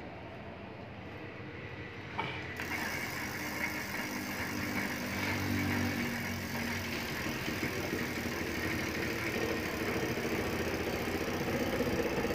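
Bicycle rear-hub freewheel spun by hand, its pawls ratcheting steadily as it coasts; it starts with a sharp click about two seconds in.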